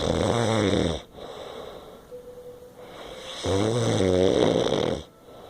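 A person snoring loudly: one rasping snore trails off about a second in, then after a quieter breath a second snore comes around three and a half seconds in and lasts about a second and a half.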